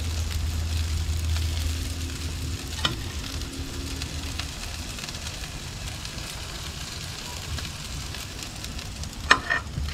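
Tandoori chicken pieces sizzling on a hot gas-grill grate while metal tongs lift them off, with a sharp clack of the tongs about three seconds in and two more near the end.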